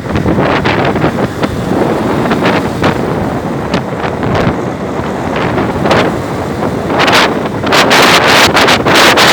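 Wind buffeting the microphone on a motorcycle moving at speed, over the bike's running noise. It comes in gusts and grows louder and more constant from about eight seconds in.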